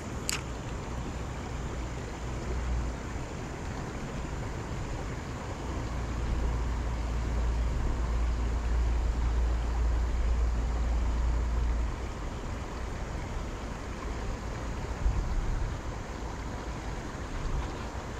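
Wind buffeting the microphone outdoors: a steady low rumble with a rushing hiss, swelling louder in the middle for several seconds. A single sharp click comes just after the start.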